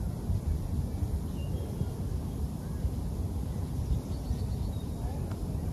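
Wind buffeting the microphone outdoors, a gusty low rumble, with a few faint high chirps about a second in and again around four seconds.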